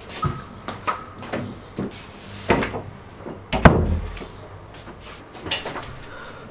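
A wooden interior door with a round metal knob being opened and pushed shut: a series of knocks and latch clicks, with the loudest, a heavy thud of the door closing, about three and a half seconds in.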